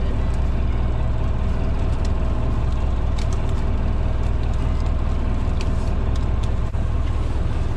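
A fishing boat's motor running steadily, a constant low drone with a rushing hiss of water over it.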